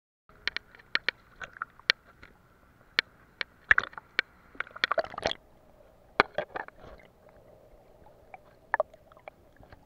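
Sea water sloshing and slapping against a waterproof camera housing at the surface. It comes as a series of sharp, irregular taps and splashes, busiest around four to five seconds in and sparser after that.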